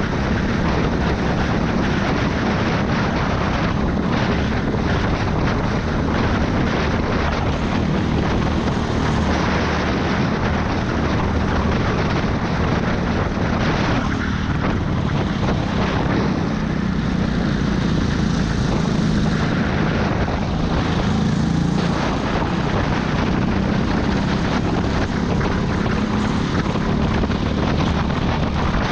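Go-kart engine running hard, heard from an onboard camera on the kart, its pitch rising and falling with the throttle through the corners, with some wind noise over it.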